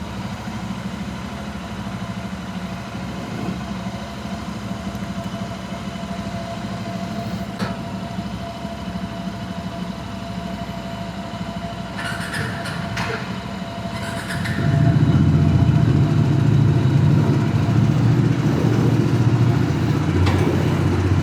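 Motorcycle engine idling as it warms up after a cold start on a foggy morning. About fourteen seconds in, its low hum gets clearly louder and stays up.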